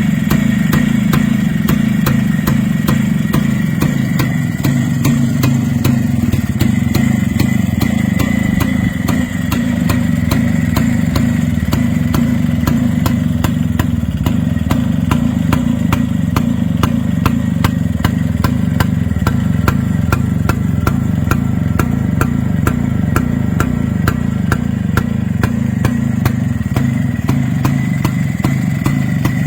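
1970s motorcycle engine idling through its stock exhaust, an even, steady beat throughout.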